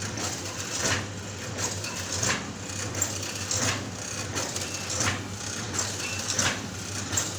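GTF 50 water-soluble film packaging machine running through its cycle: a short stroke repeats evenly about every 0.7 seconds over a steady low hum.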